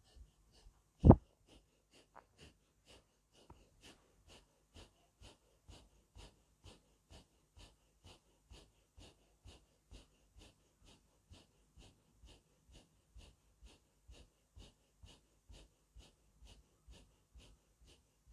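Rapid, rhythmic forceful breathing through the nose, about two breaths a second: the breath strokes of silent 'Allahu' zikr (zikr-e-khafi), each breath striking the latifa being worked on. One sharp loud click about a second in.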